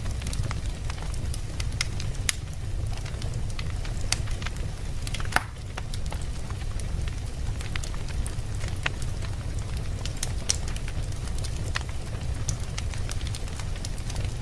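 Wood fire crackling in a fireplace: scattered sharp pops and snaps over a steady low rumble, with one louder pop about five seconds in.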